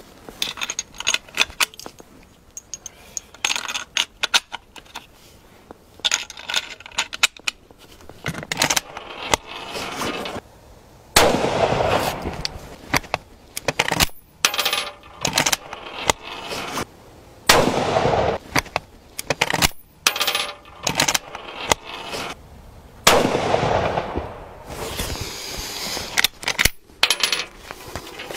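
Musgrave .308 bolt-action rifle on a Mauser VZ24 action being loaded and fired for a group: clicks of the bolt and cartridges being chambered, and three shots about six seconds apart, each followed by a fading echo.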